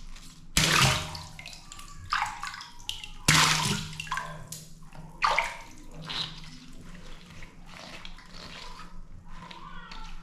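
Water balloons bursting one after another, each a sudden pop followed by a splash of water. The loudest comes about three seconds in.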